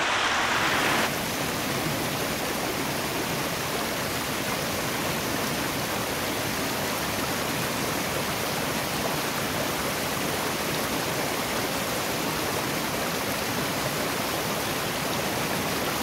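Rocky stream tumbling over small cascades between boulders: a steady rush of white water. It is a little louder for the first second, then settles to an even level.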